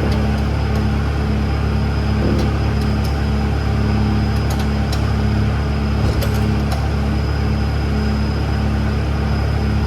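Steady machine hum with a low drone and a faint pulse about twice a second, running without change, with a few light clicks.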